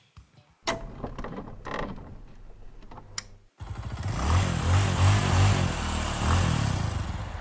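Rubber squeeze bulb of a leak-down tester pumped a few times, puffing air into the engine to build test pressure. About halfway through, a loud, steady rumble with a pulsing low note suddenly takes over until just before the end.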